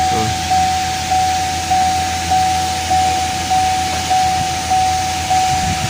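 A repeating electronic warning chime at one steady pitch, sounding about every 0.6 seconds, over a steady background hiss.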